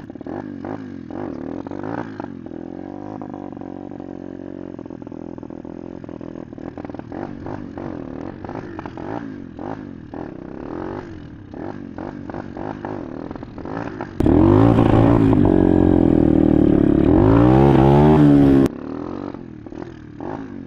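A 125 cc pit bike engine revving up and down again and again as it is ridden through clutch-popped wheelies, with wind noise on the microphone. About fourteen seconds in it suddenly gets much louder, revs hard several times, then drops back abruptly.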